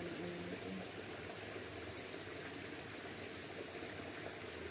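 Shallow stream water running steadily.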